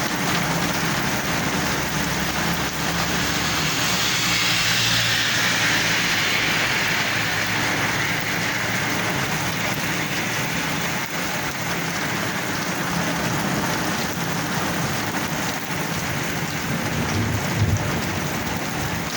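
Heavy rain pouring steadily, with a low engine hum underneath. A louder wash of hiss swells and fades a few seconds in.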